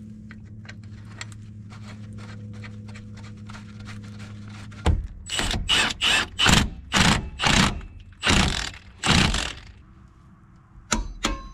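Cordless impact wrench running a nut down onto an outer tie rod end stud in about eight short bursts of hammering, after a stretch of steady low hum with faint ticking. A couple of sharp clicks near the end as a torque wrench is pulled on the nut.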